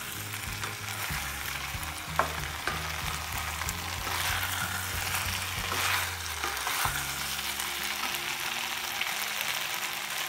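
Chilli chicken in a thick sauce sizzling in a non-stick pan while a wooden spatula stirs through it, with a few sharper scraping strokes of the spatula against the pan.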